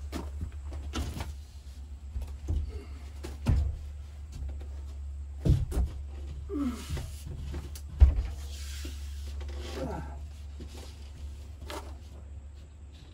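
A large sheet of wallboard being handled and lifted against wooden framing: irregular knocks, bumps and scrapes as it hits the studs and rafters, the loudest thud about eight seconds in, with a short strained grunt of effort before it.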